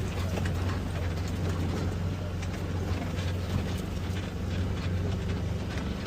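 A vehicle running steadily: an even, low engine hum with road noise and faint rattling knocks.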